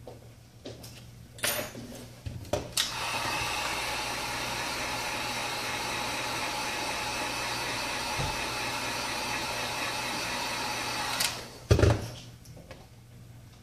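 Wagner heat gun blowing steadily for about eight seconds, switched on about three seconds in and off near the end, with handling knocks before and after.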